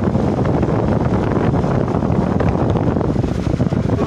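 Loud, steady din of a crowded room, heavy with low rumble.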